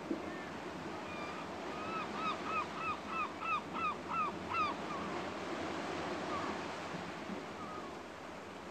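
An animal calling a quick run of about ten short, pitched calls, about three a second, that grow louder and then stop about halfway through, with a few fainter calls after, over a steady background hiss.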